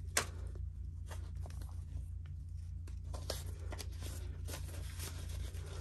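Faint rustling and light scattered clicks of paper banknotes being handled and slid into a paper cash envelope, over a steady low hum.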